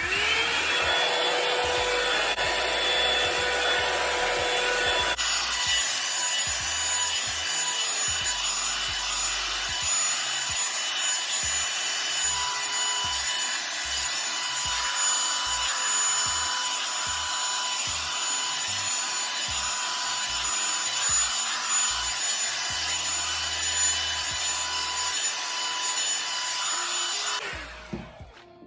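Revlon hand-held hair dryer brush switched on at its high setting, blowing with a steady motor whine over the rush of air. The pitch of the whine changes about five seconds in, and the dryer shuts off shortly before the end.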